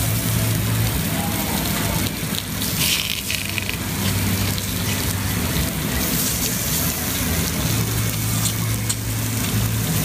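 Meat sizzling on a hot domed mookata grill: a steady hiss with scattered small crackles, over a low hum that comes and goes.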